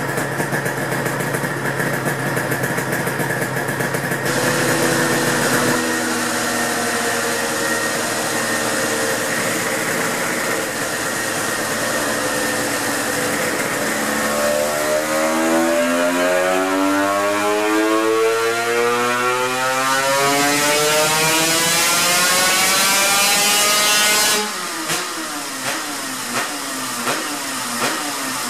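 Honda NSR250R MC21's two-stroke V-twin running on a dynamometer. It holds a steady speed for about fourteen seconds, then climbs in one long rising pull for about ten seconds. The pull cuts off sharply when the throttle is shut, and a few sharp pops follow as the revs fall.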